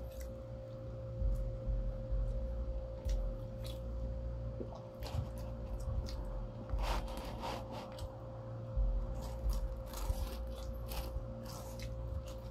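Close-up eating sounds of people chewing and biting pizza: irregular small smacks and clicks, over a steady hum.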